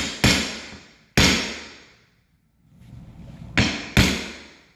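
Hammer blows on a laminate-flooring gap-closing tool, knocking a waterproof laminate plank tight to close the gap between planks. There are sharp strikes, each dying away with a short ring: about three in the first second and a half, then two more near the end.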